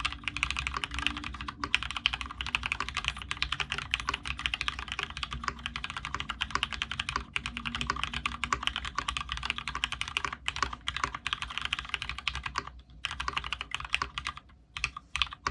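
Fast, continuous typing on a Space65 custom mechanical keyboard with Cherry Retooled Black linear switches (lubed with Krytox 105, TX films), aluminium plate and PBT keycaps: a dense stream of keystroke clacks, broken by two short pauses near the end.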